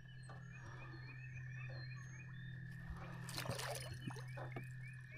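Quiet outdoor ambience: a steady low hum under rapid, short, high chirps, with a brief rushing burst a little past three seconds in.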